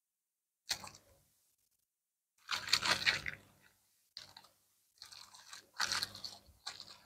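Bubble wrap crinkling as it is handled and unwrapped by hand, in several separate bursts, the longest one in the middle.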